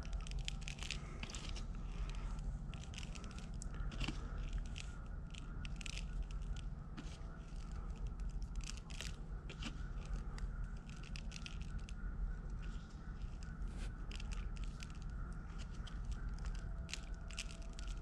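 Hand scooping and sprinkling coarse pink scenery flock over a model tree and a plastic tray: irregular small crunches, scrapes and the patter of grains landing, over a steady low hum.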